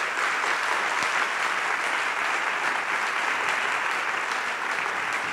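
Audience applauding, a dense, steady clapping that holds at an even level.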